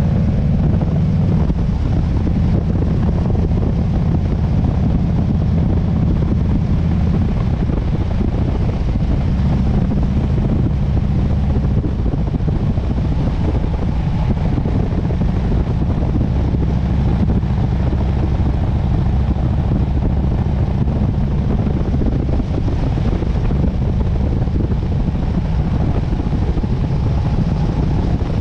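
Harley-Davidson Sportster S's V-twin engine running at a steady cruise, with wind rushing over the microphone.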